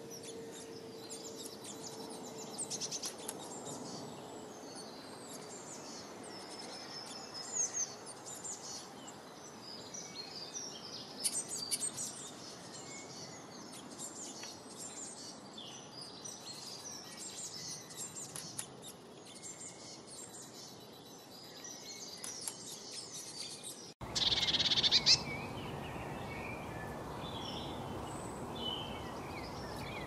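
Small songbirds chirping and twittering over steady outdoor background noise. About 24 seconds in, the sound cuts abruptly to another recording, with a short loud burst and then more birds over a louder hiss.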